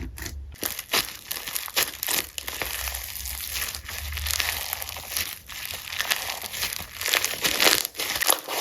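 Slime being worked by hand, a dense, continuous run of crinkling, crackling pops.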